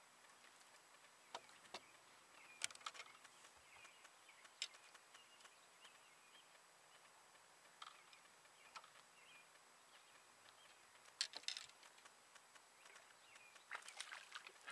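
Near silence broken by scattered sharp clicks and knocks, a few at a time, from people moving about and handling gear on a fishing boat's deck, with faint bird chirps in the background.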